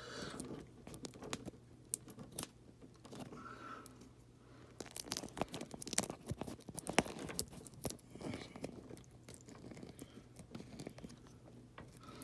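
Irregular small clicks and crackles of thin thermostat wires being spliced together by hand, mixed with handling noise close to the microphone, over a faint steady low hum.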